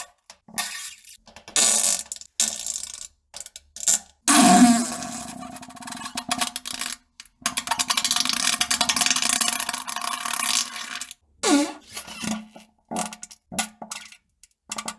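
Fart sound effects edited back to back: short, pitched blasts that cut off abruptly. The loudest one starts about four seconds in, a long drawn-out one runs from about seven to eleven seconds, and a quick run of short ones comes near the end.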